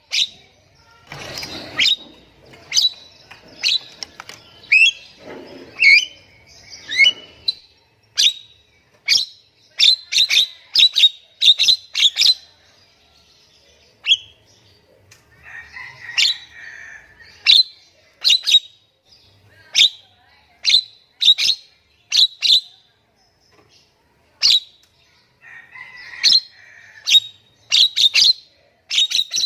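Nias hill myna calling: a long run of short, sharp whistles and chips, broken by a few harsher, rasping calls about a second in, around six seconds, and again near the middle and toward the end.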